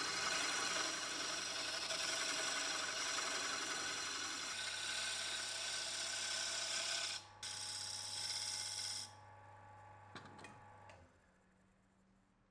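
Turning tool cutting into a spinning wood blank on a wood lathe: a steady hiss of shavings over the lathe motor's hum, with a brief break about seven seconds in. The cutting stops a little after nine seconds, the hum runs on with a few light knocks, and it cuts off when the lathe is switched off about eleven seconds in.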